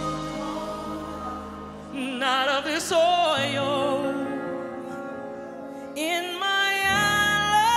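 Slow gospel song: a woman's solo voice sings two long phrases with vibrato, about two seconds in and again about six seconds in, over soft held notes from keyboard and band.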